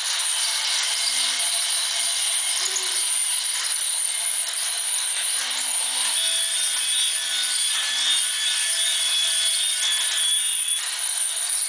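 Battery-powered toy trains running on plastic tracks: the small electric motors whir and the wheels rattle on the rails in a steady buzzing clatter. A faint steady high tone joins in about six seconds in and stops near the end.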